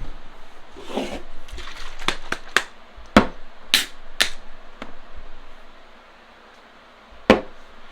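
A string of irregular sharp knocks and clicks, the loudest about three seconds in, then a gap and one more knock near the end, over a faint steady hiss.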